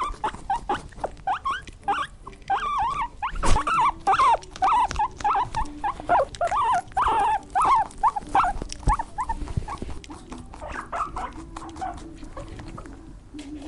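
A small animal giving many short, high squeaks in quick succession, busiest in the middle and thinning out towards the end.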